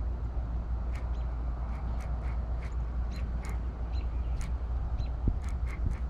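Repeated short, sharp animal calls, a few a second and irregularly spaced, over a steady low rumble.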